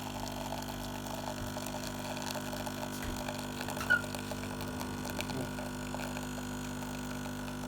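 Espresso machine humming steadily with several even tones, with one short high chirp about four seconds in.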